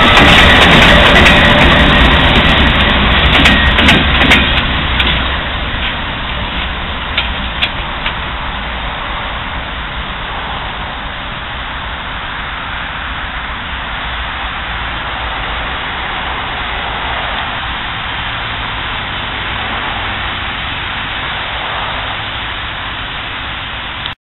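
Norfolk Southern diesel freight locomotives passing close at a grade crossing: loud engine rumble and wheel noise, with a few sharp clicks about three to four seconds in. About five seconds in it drops to a steadier, quieter rumble that cuts off suddenly at the end.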